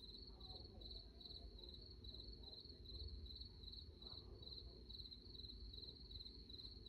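Insects chirping in an even, steady pulse, high-pitched and faint, over a low rumble.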